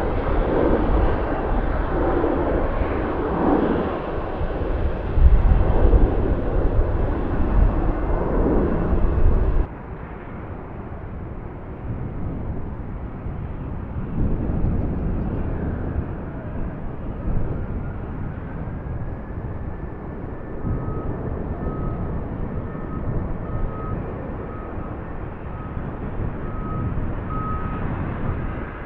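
Boeing 777-300ER's GE90 jet engines, loud with a heavy deep rumble, cutting off abruptly about ten seconds in. Then the quieter, steady jet noise of a Boeing 737 MAX 8, with a faint whine that rises later on.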